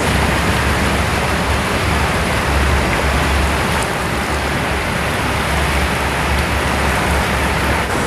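A river running high with spring runoff: a steady, loud rush of water.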